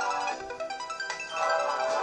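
Railway-themed alarm clock playing its electronic chime melody, a ringtone-like tune of bright plucked or bell-like notes, with a brief softer phrase in the middle.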